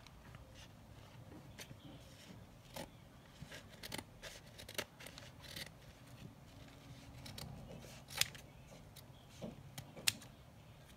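Scissors snipping off excess ribbon from a folded ribbon bow: a series of short, separate snips, irregularly spaced.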